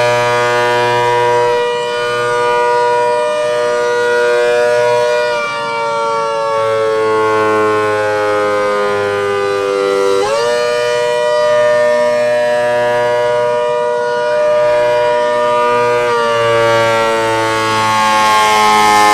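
A half-scale 3D-printed model of an ACA Hurricane 130 warning siren sounding a loud, multi-tone wail. Its pitch holds, sags slowly, and climbs back sharply about ten seconds in, then holds and sags again near the end.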